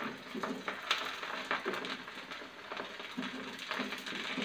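Hot oil sizzling around fried chicken in a pan while a wooden spatula scrapes the pieces onto a wire spider strainer. A few sharp clicks sound as the strainer and spatula knock against the pan.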